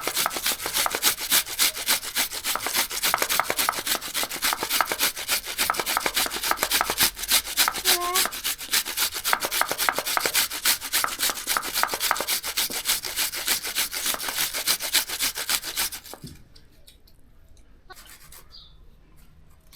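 Fast, even scraping strokes of vegetables being cut or worked for bhajia, running steadily and then stopping abruptly about sixteen seconds in.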